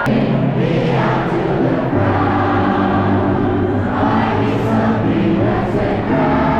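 Music with singing voices over held bass notes that change about every two seconds; it starts abruptly.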